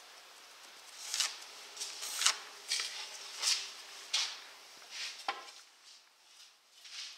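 Short scratchy scrapes and light knocks, about one every half to three-quarters of a second, from a wooden board being marked and handled. A brief falling squeak comes about five seconds in.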